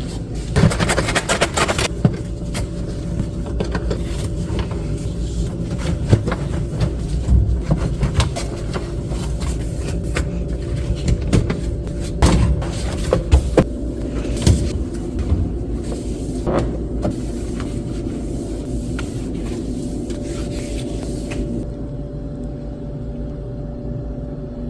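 Knocks, clatters and scrapes of a refrigerator being cleaned by hand, shelves and fittings handled and wiped, over a steady low hum.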